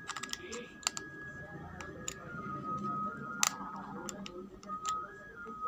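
Sharp plastic clicks and taps from a digital hanging luggage scale being handled as batteries are fitted into its battery compartment, the loudest about three and a half seconds in. A faint background tune plays underneath.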